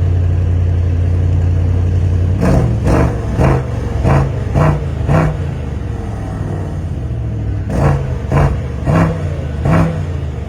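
Mercedes-AMG S63's twin-turbo V8, in Sport Plus mode, running at a steady idle, then revved sharply six times in quick succession from a couple of seconds in. It settles back, then is revved four more times near the end.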